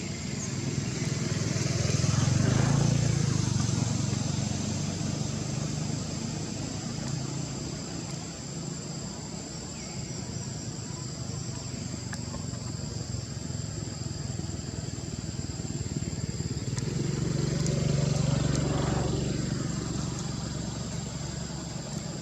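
Motor vehicles passing by twice, once a couple of seconds in and again near the end, each swelling and fading, over a steady high-pitched whine.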